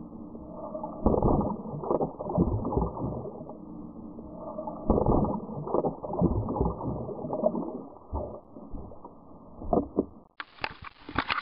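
Muffled underwater sound of churning water with knocks and bumps against the camera housing, in loud surges about a second in and again about five seconds in. Near the end the camera breaks the surface and the sound turns to open-air splashing.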